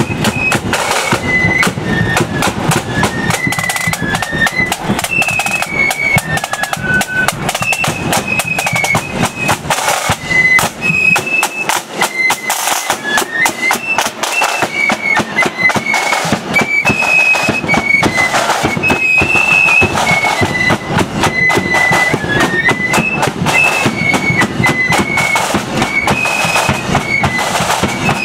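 Marching flute band playing a tune: massed flutes carry a high melody over side drums and a booming bass drum beating time. The low bass-drum sound drops back for a few seconds in the middle.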